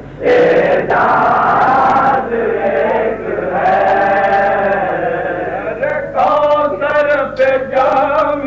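A male voice singing a slow devotional chant, with long, held notes that bend gently in pitch.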